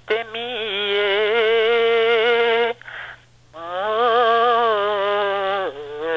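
A woman singing a Romanian folk song in long held notes with a wide, wavering vibrato. She stops for a breath about three seconds in, then sings on.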